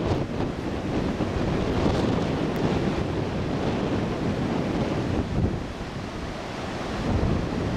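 Gusty typhoon wind buffeting the microphone over the rush of heavy surf breaking along the beach.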